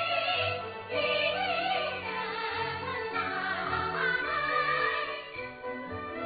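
Kunqu opera music: a drawn-out, wavering sung line over traditional Chinese instrumental accompaniment.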